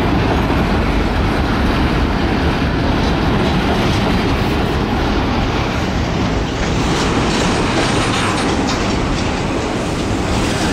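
A freight train's intermodal container cars rolling past, a loud, steady rumble of steel wheels on rail with clicking over the rail joints.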